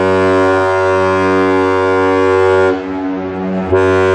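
Great Lakes freighter Philip R. Clarke's ship horn sounding loud, deep, steady blasts: one long blast cuts off about two and a half seconds in, and another starts about a second later.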